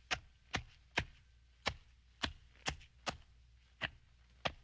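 Repeated sharp chopping blows, about two a second at an uneven pace.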